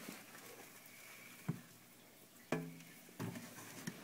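Faint steady hiss with a few short, soft knocks: one about a second and a half in, a louder one about two and a half seconds in, and a small cluster near the end.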